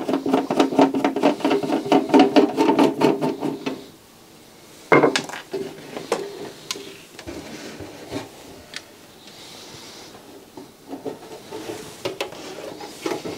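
A screwdriver turning a screw out of the back of a Schneider CDP7000 CD player's case, a rapid grating run of clicks for about the first four seconds. About five seconds in there is a knock, followed by scraping and rubbing as the cover is slid off the chassis.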